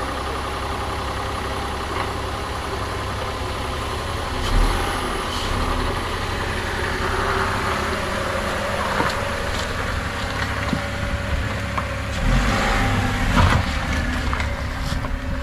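A Nissan Magnite's three-cylinder petrol engine idling steadily, with a few brief louder bumps about four seconds in and near the end.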